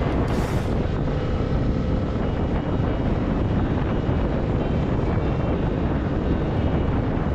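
Wind rushing over the microphone while riding a Honda CB300R, with the steady drone of its single-cylinder engine underneath.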